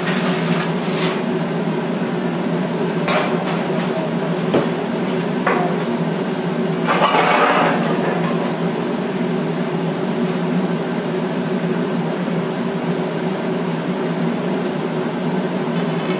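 A steady engine hum with a few sharp metal clinks and knocks, and a short, louder scraping rush about seven seconds in.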